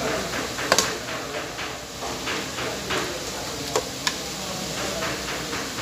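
Metal spatula scraping and knocking against a large metal wok while shredded cabbage, carrots, noodles and chicken are stir-fried and tossed. A few sharper clinks stand out, the loudest just under a second in.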